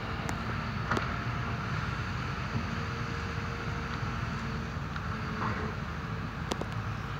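Excavators' diesel engines running in a steady low rumble, with wind on the microphone. A few short, sharp knocks from the machines at work come about a second in and near the end.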